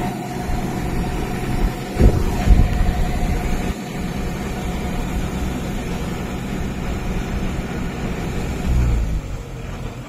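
Rice combine harvester running steadily while its unloading auger discharges threshed paddy grain into a trailer, with a couple of louder knocks about two seconds in.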